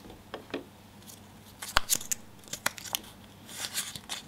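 A small rolled-up paper map being unrolled between the fingers: stiff paper crinkling and crackling in a few short clusters of sharp clicks.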